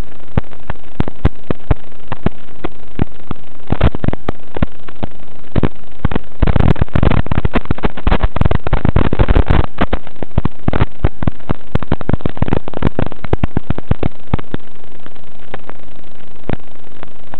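Loud steady hiss of static from an analogue 5.8 GHz FPV video link, full of crackling clicks that crowd together and grow louder between about four and ten seconds in.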